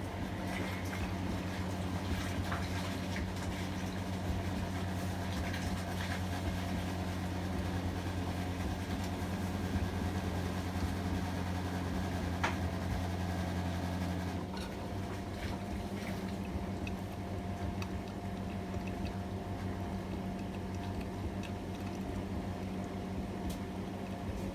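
AEG Öko-Lavamat 73749 washing machine with water running through it during its cycle. A steady low electric hum stops abruptly about fourteen seconds in, and the water sound and small clicks carry on after it.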